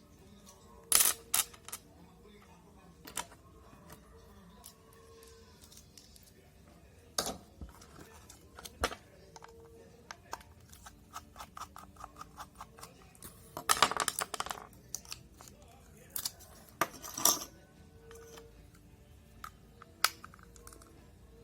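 Scattered clicks and knocks of small hard objects being handled, with a quick run of rapid ticks about halfway through.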